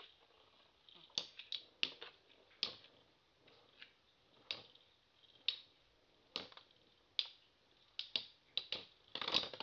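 Spinning Beyblade tops, Galaxy Pegasus against another, clacking against each other and the stadium wall in sharp, irregular knocks about one or two a second. A quicker flurry of clashes comes near the end as the two tops grind together.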